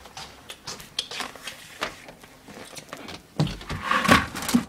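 Scattered light crackles and clicks, then louder crinkling of a plastic snack bag held close to the microphone near the end.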